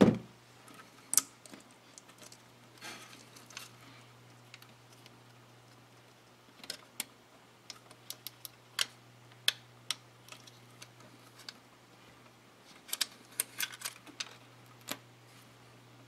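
Cables being handled and dressed inside a computer case: scattered sharp plastic clicks and ticks, bunched about halfway through and again near the end, over a faint steady low hum.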